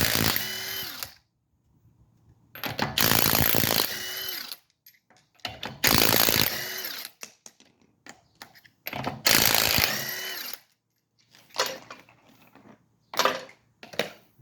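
A power tool run in short bursts: about four runs of a second and a half each, a few seconds apart, with two shorter blips near the end.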